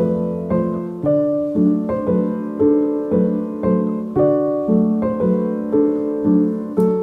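Background piano music, with notes struck at an even pace of about two a second.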